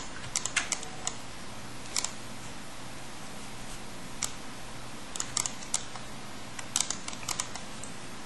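Computer mouse clicks and keyboard key presses, a few at a time with pauses between, over a faint steady hiss.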